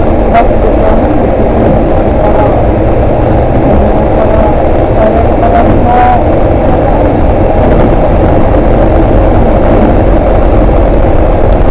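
Bus engine and road noise heard from inside the cabin: a loud, steady low rumble as the bus drives on a snowy road.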